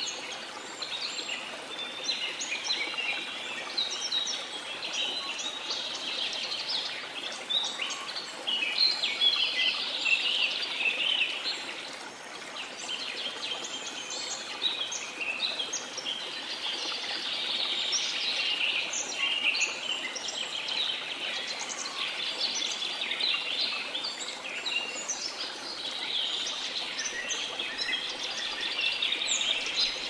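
Many birds chirping and singing at once, their calls overlapping without a break, over the steady rush of a waterfall.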